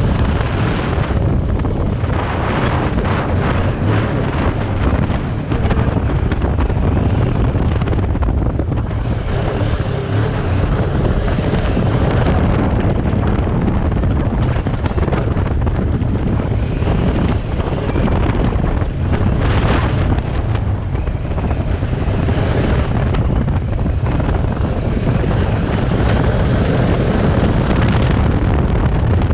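Kawasaki Versys 650's parallel-twin engine running steadily as the motorcycle rides along, mixed with heavy wind buffeting on the microphone.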